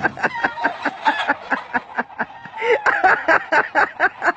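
A person laughing hard in a quick, even run of short bursts, about four or five a second, with a louder stretch of laughter about two and a half seconds in.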